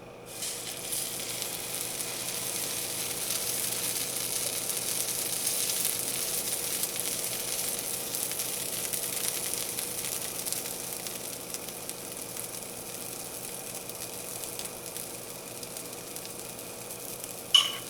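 Cornmeal batter frying in hot oil in a cast-iron skillet: a sizzle that starts suddenly about half a second in, then runs steadily and eases a little. There is a brief sharp sound near the end.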